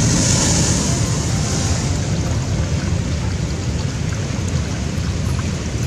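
Rough sea surf rushing over rocks: a steady, loud wash with heavy wind rumble on the microphone. A brighter hiss of breaking water swells in the first second or so.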